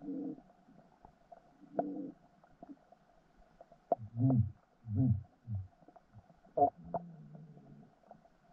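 Muffled underwater sound: short low rumbles, then three deeper thuds about half a second apart midway, with a few sharp clicks and a brief low hum near the end.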